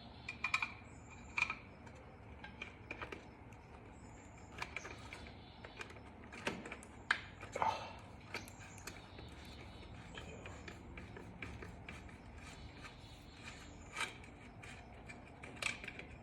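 Hand screwdriver backing out a small screw from a motorcycle headlight ring: faint scattered clicks and ticks of metal on metal, with a few short squeaks and a couple of louder clicks about halfway through.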